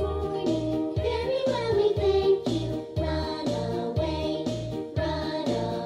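Children's action song playing, with a sung melody over a steady bass beat of about two beats a second.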